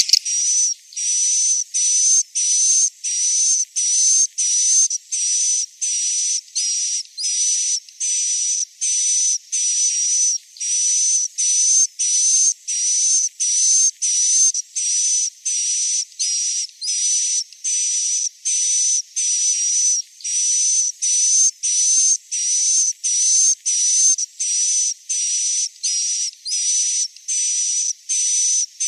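Recorded swiftlet roosting call ('suara inap'): short, high-pitched chirps repeated evenly, about three every two seconds. It is the lure played in a swiftlet house to make young swiftlets settle and stay.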